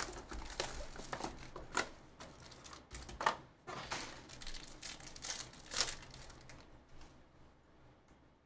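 Trading-card pack wrapper crinkling and tearing as a pack is ripped open and its cards are handled: irregular crackles with a few sharper rips, dying away near the end.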